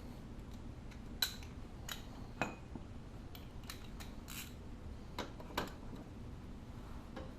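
Metal tools or parts clinking as they are handled: about eight sharp, separate clicks spread unevenly over several seconds, with a faint steady background hum.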